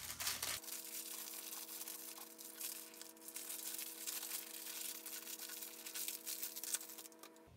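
Clear plastic packaging bag crinkling and rustling as it is handled and torn open by hand, with a faint steady hum underneath.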